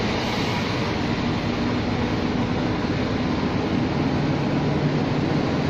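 Scania G460's inline-six diesel engine running at low revs, heard from inside the cab as the truck creeps forward; a steady drone with a low hum.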